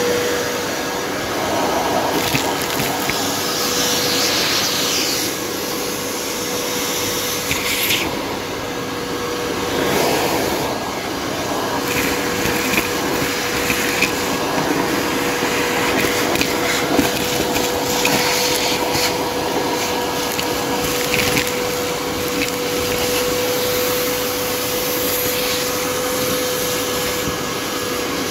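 Canister vacuum cleaner running with a steady motor whine, its crevice nozzle sucking ash, rust and burnt debris out of a car body's crevices. Scattered short rattles come through as bits of debris are drawn in.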